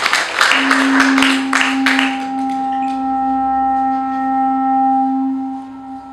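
A run of handclaps that stops about two seconds in, overlapped by a long held low note from a wind instrument in the show's music; a higher note joins after about a second and a half, and the sound fades near the end.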